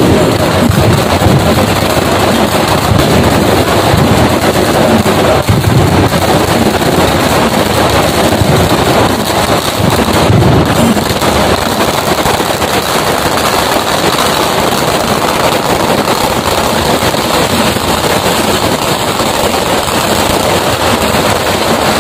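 A long string of firecrackers going off in a rapid, unbroken run of sharp cracks, loud throughout.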